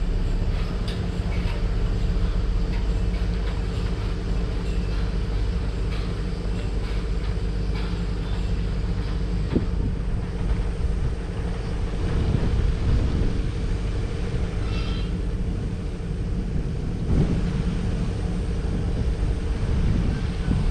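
Kurogane Line freight train approaching: a steady low hum and rumble with a few faint clicks from the rails.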